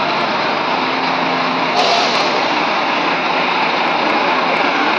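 Scania K410 coach's 13-litre six-cylinder diesel engine running as the bus pulls away, with a short hiss about two seconds in.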